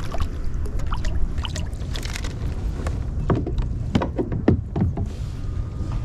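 A scatter of clicks and knocks from handling on a kayak, a few louder ones about three to five seconds in, over a steady low rumble.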